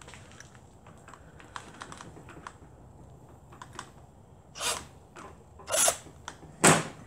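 Light clicks and handling of a composite shim, then three short bursts of a cordless drill with a 5/16-inch bit pressed into the shim, about a second apart, the last the loudest: the bit is struggling to bite and start the hole.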